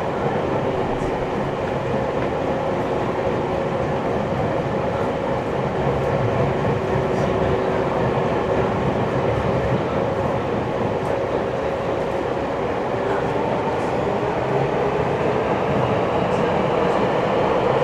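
Nagoya Municipal Subway 3050-series train heard from inside the car, running between stations in the tunnel: a steady rumble of wheels on rail. A held two-tone hum sits over it and fades out about two-thirds of the way through.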